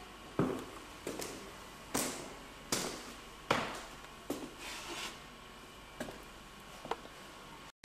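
Footsteps on a hard floor, about ten steps at a walking pace, over a steady background hiss; the sound drops out briefly at the very end.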